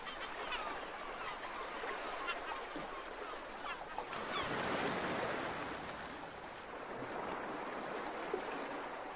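Surf washing on a beach, swelling and easing, with gulls giving many short calls over it.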